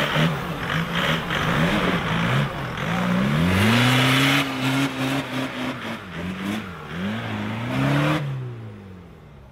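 Off-road buggy engine revving up and down hard as it claws up a steep sandy bank, with a rush of spinning tyres throwing sand about four seconds in. The engine fades near the end as it drives off.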